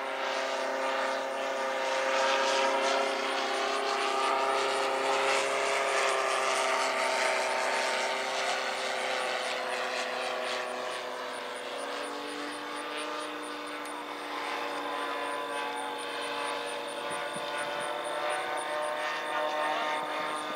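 Remote-control model aircraft engine droning steadily in flight, its pitch drifting slowly up and down.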